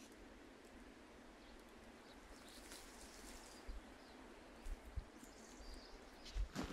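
Quiet forest ambience: faint bird chirps over a soft hiss, with a few brief low thumps in the second half.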